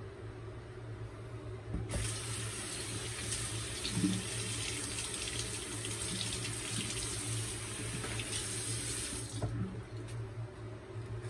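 Bathroom tap running into a sink, turned on about two seconds in and shut off a couple of seconds before the end, with irregular splashing under the stream as something is rinsed.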